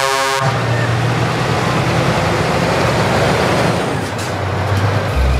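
Steady low rumble of a heavy vehicle engine running, a dubbed sound effect rather than the toys themselves, with a short pitched tone right at the start.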